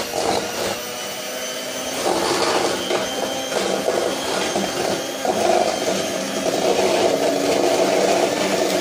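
Electric hand mixer running steadily at speed, its beaters whipping cold heavy cream in a stainless steel bowl; the motor whine grows a little louder and fuller about five seconds in.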